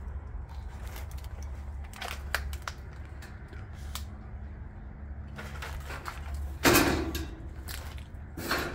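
Footsteps crunching over debris-strewn floor (broken drywall, insulation, plywood), with scattered small clicks and a loud crunch about two-thirds of the way in and another near the end.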